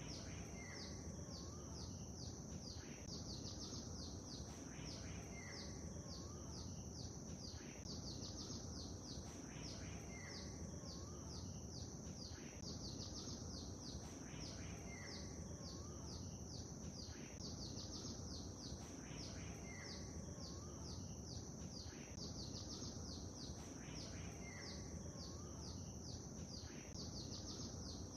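Birds chirping over a steady low wash of lake water; a short phrase of quick, falling chirps repeats about every two and a half seconds.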